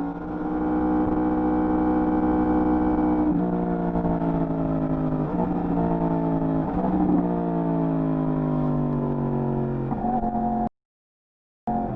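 Yamaha R1 inline-four on its stock exhaust, heard while riding. The engine holds a steady note for about three seconds, then its pitch steps down and falls slowly as the bike slows, with a few brief changes along the way. The sound cuts out completely for about a second near the end.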